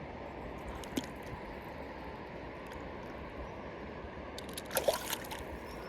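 Steady trickle of flowing water at a riverside fishing spot, with a sharp click about a second in and a short burst of splashy, rattling noises about five seconds in.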